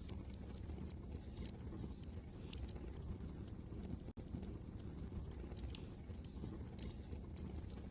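Wood fire in a fireplace crackling with irregular sharp pops and snaps over a steady low rumble of wind. The sound cuts out for an instant about four seconds in.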